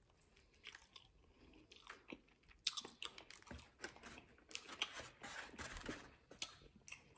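A person chewing and biting food, with faint, irregular wet clicks and small crunches that come more often from about two and a half seconds in.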